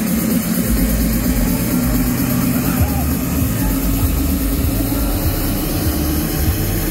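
A Krake octopus fairground ride running: a loud, steady low rumble of its machinery under a noisy wash.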